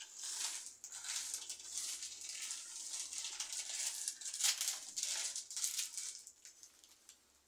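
Dry beans rattling and clicking as fingers sort and slide them around on the table, picking out stones and debris. It fades out near the end.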